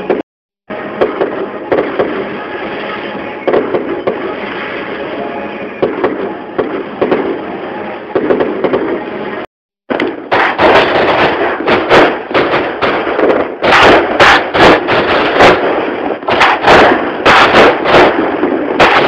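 Fireworks going off: a dense crackle with scattered pops for the first half. After a short break come many loud sharp cracks and bangs in quick, overlapping succession.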